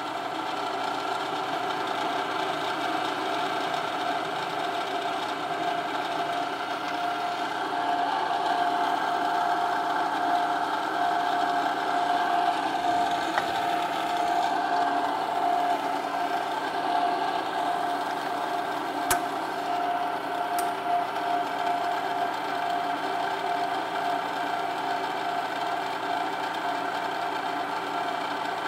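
Machine press motor running with a steady mechanical hum, and one sharp click about two-thirds of the way through.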